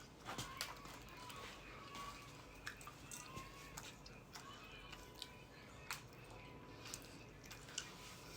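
Faint chewing of a mouthful of ice cream, with a few soft clicks scattered through it.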